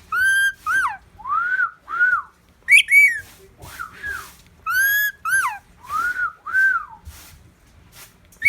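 A pet talking bird whistling a string of short notes, mostly in pairs, each swooping up and then down in pitch, with a few higher, shriller notes mixed in.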